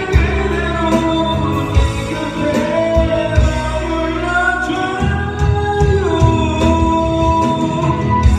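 A voice singing long, held notes that slide between pitches over a loud rock ballad backing track with drum hits.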